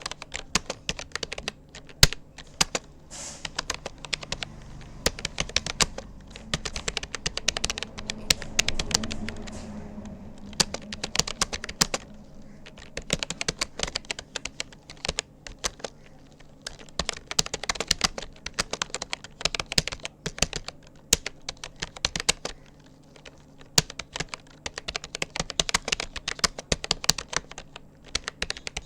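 Fast typing on a Rapoo computer keyboard: a dense, irregular run of key clicks with short pauses now and then.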